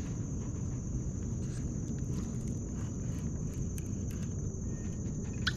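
Continuous high-pitched insect trill, typical of crickets, over a steady low rumble, with faint scattered ticks and one sharp click about five and a half seconds in.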